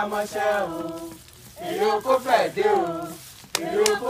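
A voice chanting in a sing-song way, with long held and gliding notes and a short pause about a second in. A few sharp handclaps come near the end.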